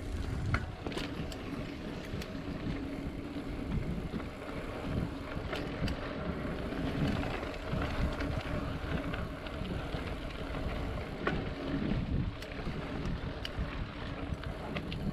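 Mountain bike ridden along a dirt trail: a steady rumble of tyres and wind on the microphone, with scattered rattles and clicks from the bike.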